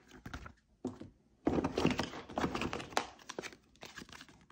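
Paper and cardboard being handled: a card folder being opened and paper targets and cards slid out, giving rustling and scraping with a few light knocks. A sharp click comes at the start and a knock about a second in, and the rustling is densest in the middle.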